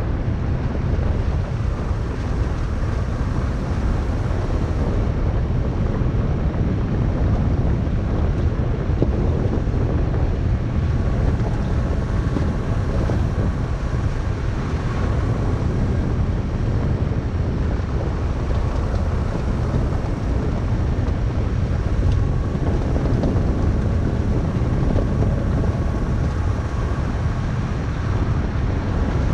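Vehicle driving steadily along a gravel road: a continuous low rumble of tyres on gravel mixed with wind noise on the microphone.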